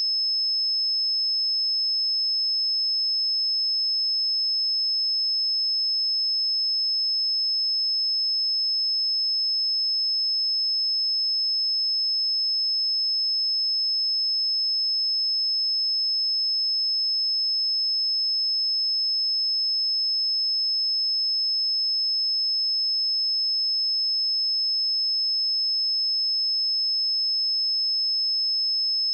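A pure 5205 Hz sine-wave test tone, a single high-pitched steady note held without change.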